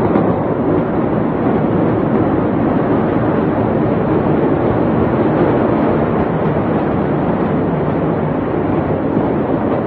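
Loud, steady rushing rumble with no distinct bangs, heard through a phone-quality recording.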